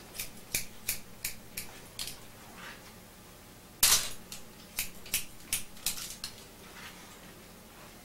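Hair-cutting scissors snipping through a section of long hair, a run of quick snips about three a second, a louder snap near the middle, then another run of snips: cutting a straight guideline across the nape.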